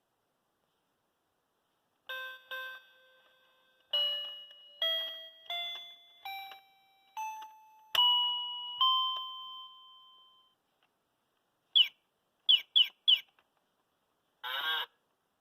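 Children's toy keyboard playing through its small speaker: a short tune of electronic chime notes climbing step by step, then recorded animal sounds, four quick bird chirps followed by a honking call near the end.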